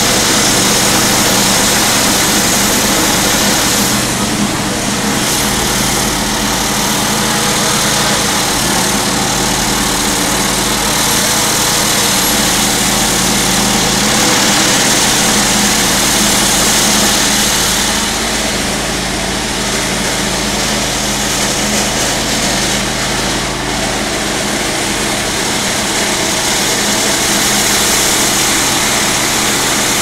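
Jackhammer running continuously and loudly, a dense rapid hammering over a steady low hum.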